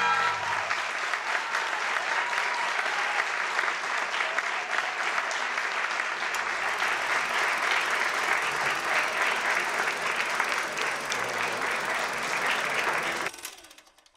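Audience applauding, a dense steady clapping that follows the end of the music and cuts off abruptly near the end.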